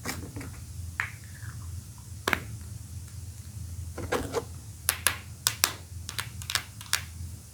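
Plastic toy Poké Ball clicking and snapping: two sharp clicks, then a quick run of about eight clicks near the end, over a steady low hum.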